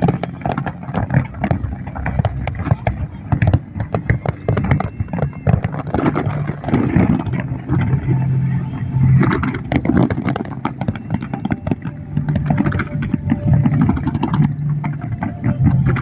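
Fireworks going off in quick succession, many sharp bangs and crackles, over people talking and a steady low hum.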